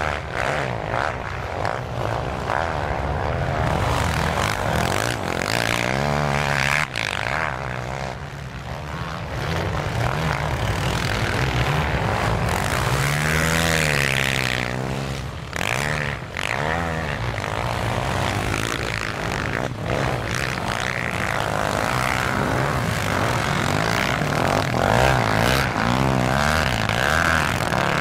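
Several quad bike (ATV) engines running hard, their pitch rising and falling again and again as the riders open and close the throttle, with one big rev up and back down about halfway through.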